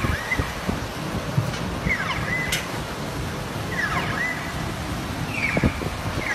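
Floodwater surging and sloshing through a street with heavy rushing noise. Over it, an electronic alarm repeats a falling chirp that levels off into a short held tone about every two seconds.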